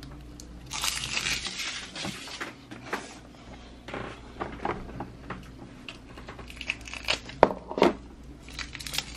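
Crinkly foil blind-bag wrapper from a toy surprise ball being handled and crumpled, with scattered sharp clicks of small plastic toy pieces. The crinkling is heaviest in the first couple of seconds, and two louder clicks come close together later on.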